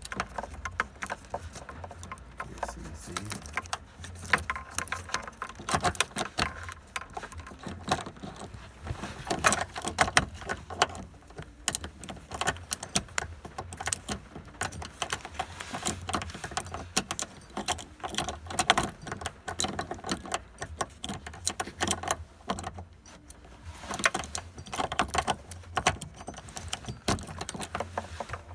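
Keys jangling on their ring with irregular metal clicks and knocks as a new ignition lock cylinder, key inserted and turned to ACC, is worked into a 1995 Toyota Corolla's steering column housing.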